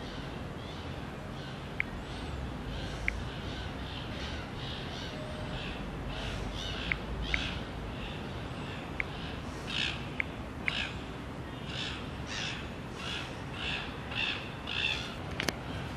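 Birds calling: short sharp chips scattered throughout, and a run of harsh, crow-like calls about two a second through the second half.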